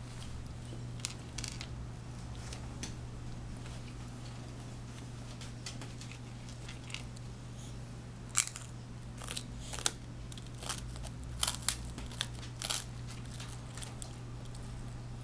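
Scattered small clicks and crunches of a baby eating finger food, more of them in the second half, over a steady low hum.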